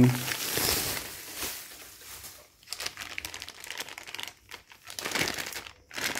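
Bubble wrap and a thin plastic bag crinkling and rustling in irregular handfuls as a new fuel rail is unwrapped by hand.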